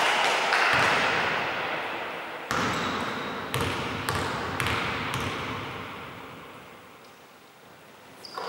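A basketball bouncing on a gym floor a few times, roughly a second apart, each bounce echoing in the hall. It fades to quieter hall noise near the end.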